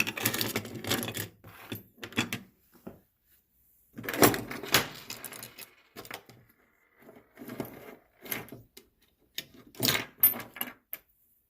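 Small metal and plastic parts of a disassembled electrical switching component being handled, in irregular bursts of clicking and rattling: four clusters of knocks with quiet gaps between, the biggest at the start and about four seconds in.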